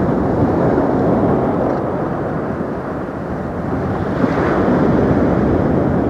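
Wind buffeting the microphone: a loud, steady rumbling roar that swells with a gust about four seconds in.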